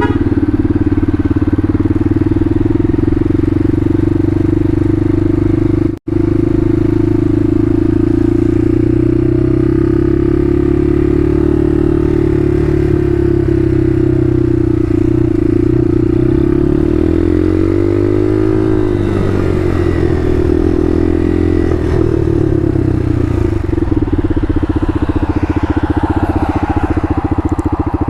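Bashan Motomax 250 supermoto's single-cylinder engine running while riding, at fairly steady revs; the engine note falls and then climbs again about two-thirds of the way through as the throttle is eased and reopened. The sound drops out for an instant about six seconds in.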